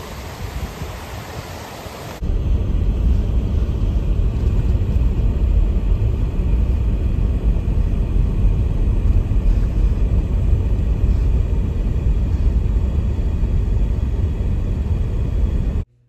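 A waterfall rushing for about two seconds, then a sudden change to the steady low rumble of a Jeep Wrangler driving in four-wheel drive on a snow-covered road, heard from inside the cabin. The rumble cuts off abruptly just before the end.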